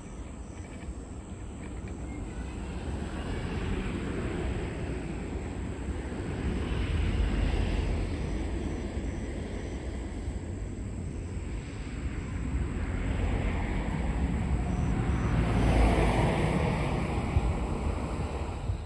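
A tour boat's motor running, with water rushing past the hull and wind buffeting the microphone; the noise swells twice and cuts off suddenly at the end.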